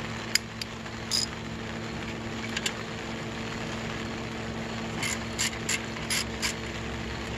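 Socket ratchet clicking as a 10 mm bolt on a truck alternator's mounting bracket is worked: a few separate clicks, then a quicker run of about four clicks a second near the end, over a steady low hum.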